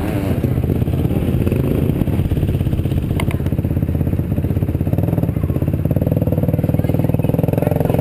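Dirt bike engine running slowly at low revs close up, with a steady rapid beat of firing pulses, picking up slightly about five seconds in.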